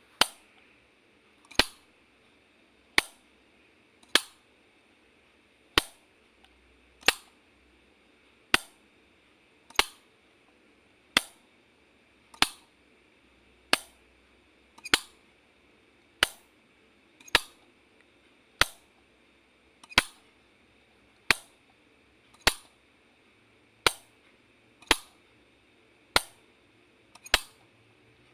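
Light switch being flicked, one sharp click at a time, evenly spaced about every 1.3 seconds.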